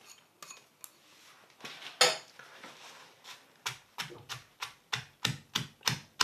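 Stone pestle pounding a chili, lemongrass and shallot paste in a stone mortar. A few scattered knocks with one louder knock about two seconds in, then a steady run of strikes about three a second through the second half.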